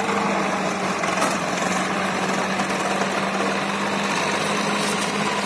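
Diesel engines of an Eicher 5660 and a Swaraj tractor running steadily under heavy load as the two tractors pull together to free a stuck tractor.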